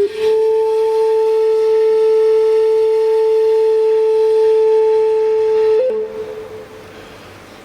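One long steady note on a flute-like wind instrument, held for nearly six seconds. It steps up slightly at the end, stops, and dies away in the cathedral's reverberation.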